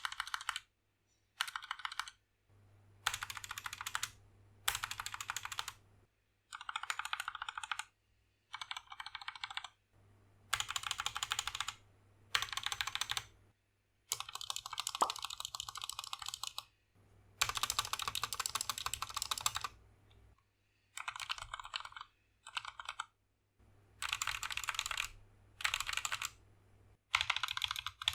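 Typing on an SK61 mechanical keyboard with lubed Gateron Optical Brown switches, XDA keycaps and an aluminium plate: fast runs of key clicks and clacks in about fourteen bursts of one to three seconds, separated by short silences.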